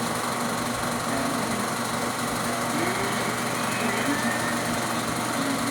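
Singer Graflex 1115A 16 mm film projector running: a steady mechanical whir of its motor and film transport.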